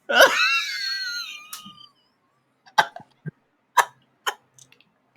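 A person's wheezing laugh: a long, high squeal that slides down in pitch over about two seconds, then four short gasping wheezes about half a second apart.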